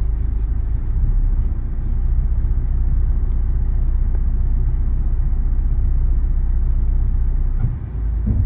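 Steady low rumble of a car heard from inside its cabin as it reverses slowly with the engine running. The level dips briefly near the end.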